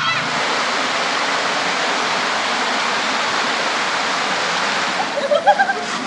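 River water rushing steadily over a rocky bed. Voices break in near the end.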